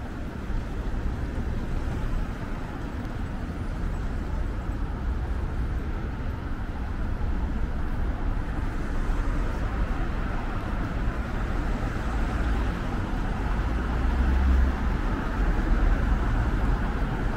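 City street ambience: steady road traffic noise with a low rumble, growing a little louder toward the end.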